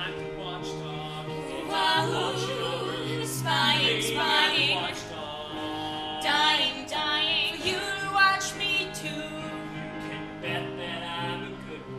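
A musical-theatre song: a voice singing with wide vibrato over an accompaniment of held chords, the singing loudest between about two and nine seconds in.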